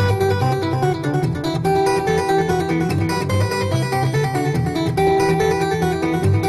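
Background instrumental music, led by guitar.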